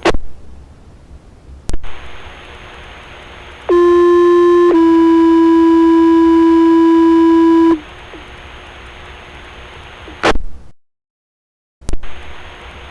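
Two-tone sequential fire pager alert received on a scanner radio: one steady tone about a second long steps straight into a slightly lower tone held about three seconds, paging out the Blyth station crew. Radio static hiss and squelch clicks come before and after the tones.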